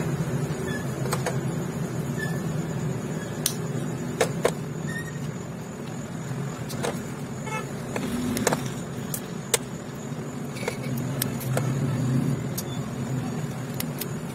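Small sharp metallic clicks, a dozen or so at irregular intervals, as loose steel needle rollers are handled and fitted into a big-end needle bearing cage, over a steady low background rumble.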